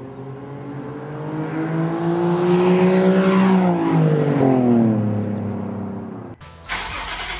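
Nissan 370Z's 3.7-litre V6 through an Agency Power dual-exit stainless catback exhaust with its silencers fitted, revving: the pitch climbs steadily for about three seconds, then falls back over the next two or three. It cuts off abruptly near the end.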